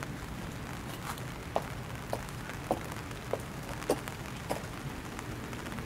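High-heeled shoes clicking on a wet brick path at an even walking pace, about seven sharp steps, over a steady background hiss.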